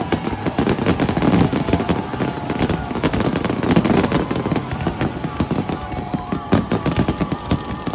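Fireworks display going off: a dense, continuous run of overlapping bangs and crackling.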